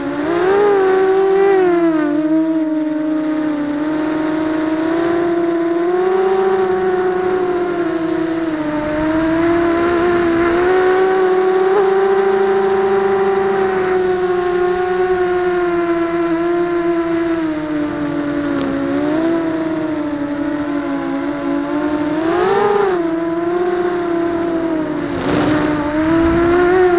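ZMR250 quadcopter's electric motors and propellers whining as heard from a camera mounted on the frame. The pitch rises and falls with the throttle, with quick upward swoops about a second in and again a few seconds before the end.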